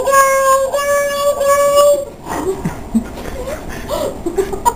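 Hand whistle: a boy blowing into his cupped hands, giving three loud held hooting notes, each a little higher than the last. About two seconds in they stop, and quieter short voice sounds follow.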